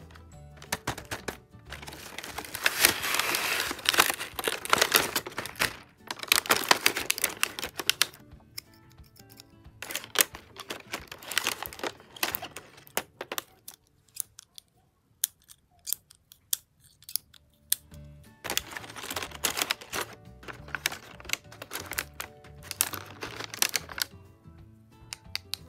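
Crinkling of plastic packaging and sharp clicks of small stationery pieces being handled during unboxing, in several spells of a few seconds each, over background music.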